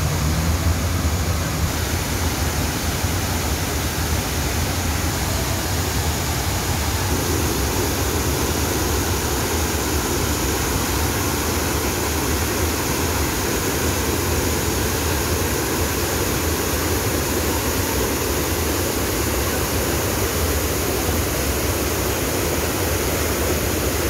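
Artificial rock waterfall pouring into a pond: a steady rush of falling water, a little fuller from about seven seconds in.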